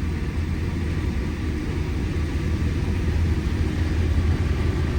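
Steady low drone of a combine harvesting corn, heard from inside the cab: the engine and threshing machinery running evenly at about 5 miles an hour.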